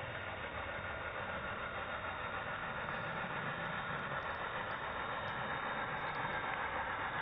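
Steady running noise of a model train, heard through a small microphone riding on a wagon the locomotive is pushing over the track: an even hiss with no beat, growing slightly louder.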